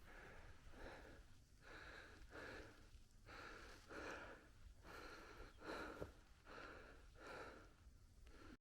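A hiker's heavy, rhythmic breathing while climbing uphill, faint, with about one breath a second.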